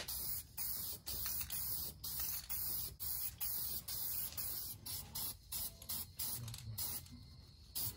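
Aerosol can of primer spraying in a run of hissing passes, with short breaks between them; it stops about seven seconds in.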